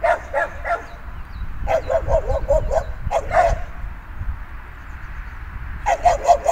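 Dog barking in quick runs of short barks: three at the start, a fast string about two seconds in, and another run near the end.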